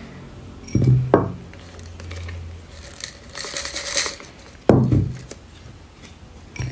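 Expanded clay pebbles (LECA) poured from a small glass into a glass jar, clinking and rattling against the glass. Two dull knocks come about a second in and near five seconds.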